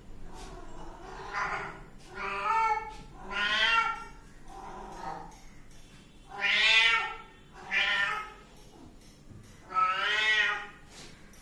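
Kittens meowing: about seven separate meows, each under a second long, the loudest about seven and ten seconds in.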